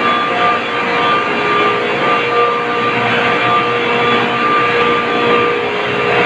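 Industrial refrigeration compressors and their electric drive motors running steadily in an ice plant machine room, a loud continuous mechanical drone with a steady whine running through it.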